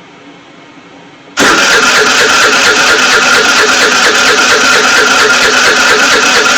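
Scooter's electric starter cranking the engine in a rapid, even chug with a steady whine, the engine not catching. The cranking cuts in abruptly about a second and a half in, after a faint hum.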